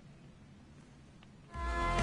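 Near silence, then about one and a half seconds in music starts playing from the Sonus solar speaker-charger, fed from a phone over a cable. It has held notes over a beat and grows steadily louder.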